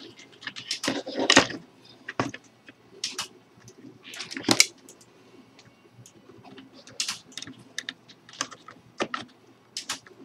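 Irregular light clicks and taps of small parts and tools being handled at a workbench, with a few louder knocks around one and a half and four and a half seconds in.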